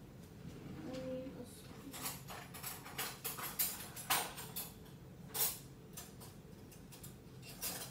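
Scattered short scrapes, clicks and rustles of food containers and utensils being handled at a kitchen counter while a fruit and yogurt bowl is put together, busiest from about two seconds in.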